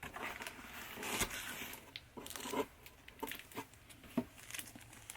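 Packaging being handled: irregular rustling, crinkling and tearing with a few sharp clicks, as items are unwrapped and taken out of a box.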